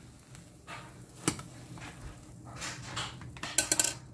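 Spatula and dishware clinks as a fried egg is lifted out of a nonstick frying pan and set on a plate: one sharp click about a second in and a short run of quick clinks near the end, over low kitchen background.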